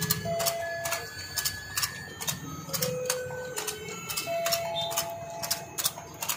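Rotating toy fishing game: its plastic gears click steadily about three times a second as the fish pond turns, while a simple electronic tune of single beeping notes plays.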